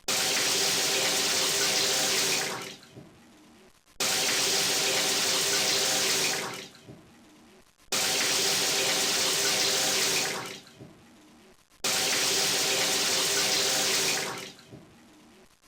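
Shower water running in four bursts of about two and a half seconds each. Each burst starts suddenly and dies away, with short quieter gaps between them.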